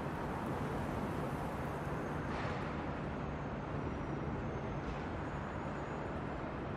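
Steady street-like ambient noise with a low hum, like distant traffic, forming a quiet recorded intro to a track. It has faint swells about every two and a half seconds.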